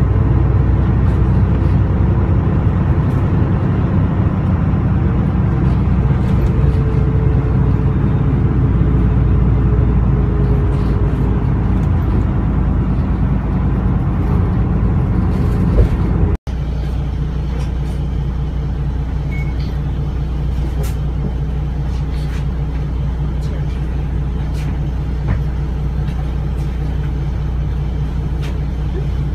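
Isuzu Erga Mio's 6HK1 turbo-diesel engine heard from the rear seats of the bus, running steadily as the bus cruises at a constant speed. The sound drops out briefly about halfway through and comes back slightly quieter.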